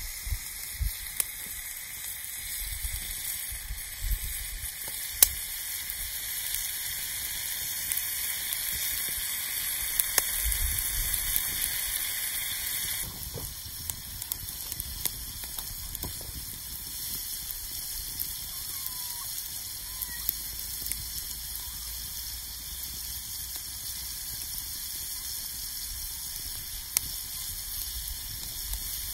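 Meat sizzling on a hot stone slab over a wood fire: a steady frying hiss dotted with sharp pops and crackles. The hiss is louder for the first half and eases off about halfway through.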